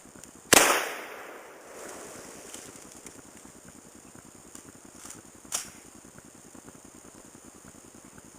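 A single rifle shot from a 1963 SKS firing 7.62×39 softpoint, with its report dying away over about a second. A second, much fainter sharp crack follows about five seconds later.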